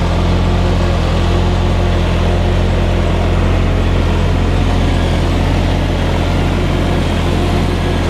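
John Deere tractor's diesel engine running steadily and loudly under load as it passes close over the ground-level microphone, towing a loader wagon through the grass swath.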